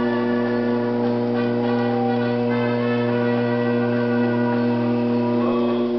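Electric potter's wheel motor humming at a steady, unchanging pitch.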